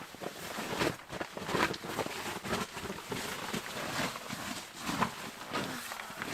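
Footsteps crunching through snow, a step roughly every second.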